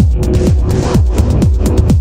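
Techno: a steady four-on-the-floor kick drum, a little over two beats a second, with crisp hi-hats and a held synth note, and a short noise wash rising through the middle.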